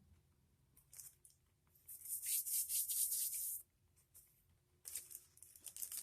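Crinkling and rustling of snack packaging being handled, in two spells: a longer, louder one of about a second and a half, then a shorter one near the end.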